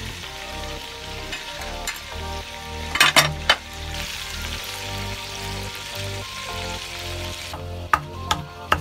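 Steady sizzling hiss from a pot holding a whole chicken in hot liquid, with a few sharp clinks about three seconds in. Near the end the hiss stops and a wooden pestle starts pounding in a stone mortar, about two to three strokes a second.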